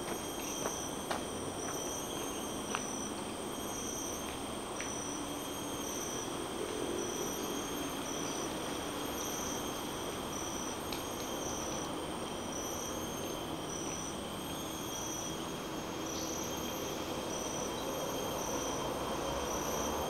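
Forest insects calling steadily: a short chirp repeating about once a second over several continuous high-pitched drones. Under them runs a constant low rumble of highway traffic, with a vehicle growing louder near the end.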